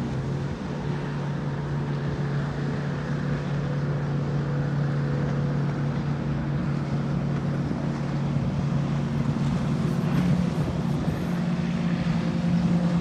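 Outboard-style motorboat engines droning steadily as boats speed past on the river, the pitch stepping up about ten seconds in.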